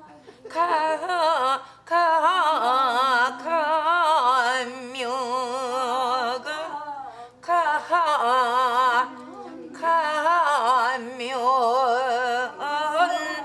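A woman sings a Gyeongsang folk-song melody in long held notes with a wide, heavily shaken vibrato, in several phrases broken by short pauses. The shaking is the ornament typical of Gyeongsang menari-tori phrase endings.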